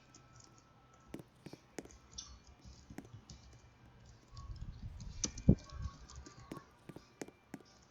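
Sparse, irregular light clicks and taps, a few per second. A low rumble of handling comes in the middle, and the sharpest click lands about five and a half seconds in.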